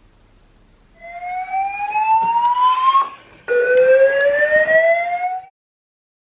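Two rising siren-like wails, each about two seconds long, made of several layered tones sweeping upward together; each cuts off abruptly.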